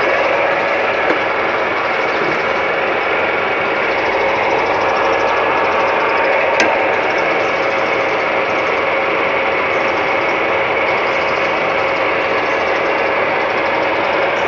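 Metal lathe running steadily with a constant whine, and one sharp click about six and a half seconds in.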